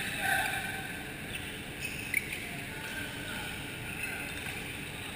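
Indoor badminton hall ambience: a steady hum and echo with a few brief sharp sounds about one to two seconds in.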